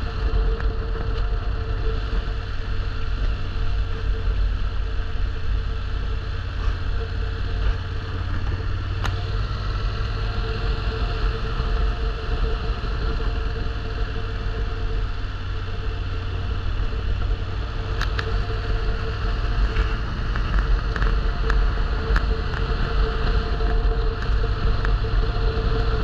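Motor vehicle driving at a steady pace: a constant low rumble of engine and road noise with a steady hum over it, and a few faint clicks.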